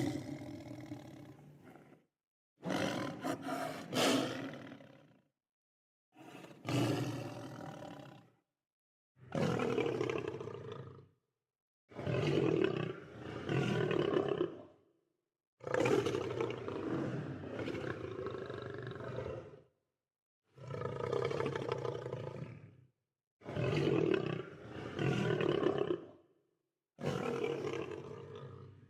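Lions roaring in a string of about nine separate roars, each two to four seconds long. The roars are split by short gaps of complete silence.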